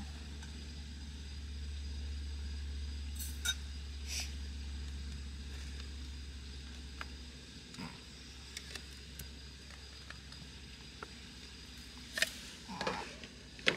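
Metal tea tin being opened and handled: a few light clicks about three and four seconds in, then a cluster of louder clicks and knocks near the end. Under it runs a steady low rumble that drops in level about halfway through.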